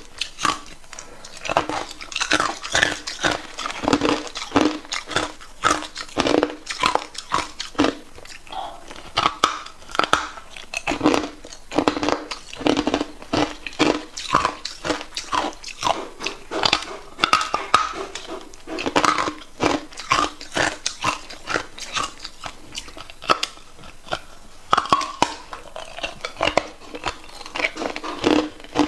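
Hard clear ice being bitten and chewed: loud, crisp crunches in quick, irregular succession, several a second.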